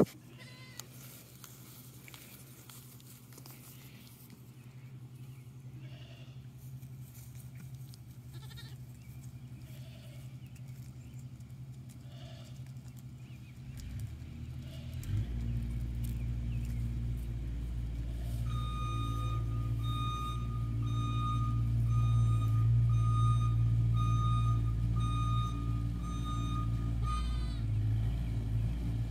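A vehicle engine running steadily, growing louder about halfway through, with a reversing alarm beeping evenly about one and a half times a second for roughly nine seconds. Before the engine comes in, it is quiet with a few faint short calls, goat bleats.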